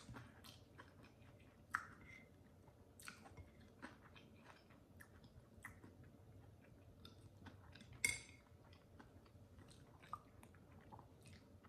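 Close-miked chewing and mouth sounds of someone eating pancakes, faint, with scattered small clicks. A fork cuts the pancakes on the plate, with the sharpest clicks about two seconds in and about eight seconds in.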